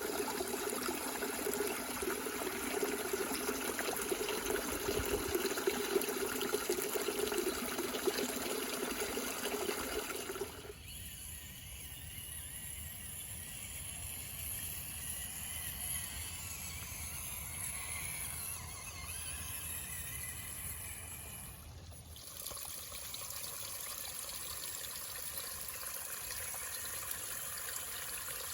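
Water running and splashing in a small waterfall and stream, a steady rushing that is fuller at first and drops to a quieter, thinner flow about ten seconds in, then shifts again abruptly about twenty-two seconds in.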